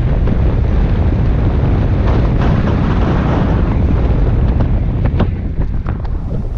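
Wind buffeting the microphone of a camera mounted outside a moving 2003 Subaru Forester, mixed with the low rumble of the car and its tyres on the snowy road. Several sharp knocks come in the last couple of seconds.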